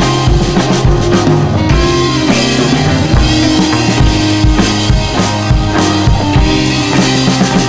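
Background music with drums and a steady kick-drum beat.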